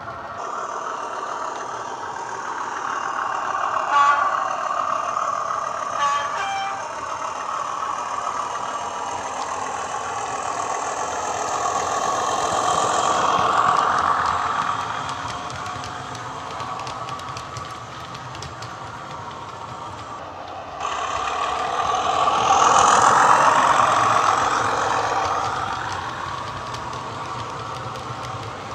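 Recorded Class 37 diesel engine sound from a model locomotive's Howes DCC sound decoder, played through a small 25x25 mm megabass speaker. It runs steadily and grows louder twice as the train passes close. Two short two-note horn toots come about four and six seconds in.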